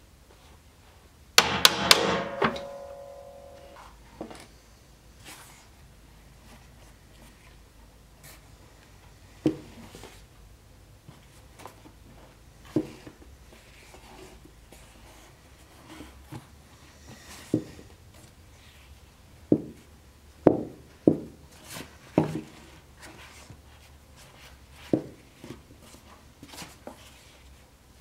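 Leatherwork at a wooden bench. About a second and a half in comes a quick cluster of sharp knocks that ring on for a second or two. After that, scattered light knocks and thumps follow while a leather scabbard seam is hand-stitched, with several close together in the second half.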